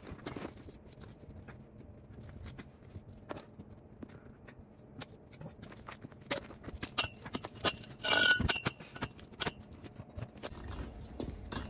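A wheel and tyre being handled on concrete beside a homemade steel-pipe bead breaker: scattered scrapes, footsteps and light knocks. About eight seconds in comes one louder metal clank that rings briefly, as the breaker's pipe arm is set against the tyre.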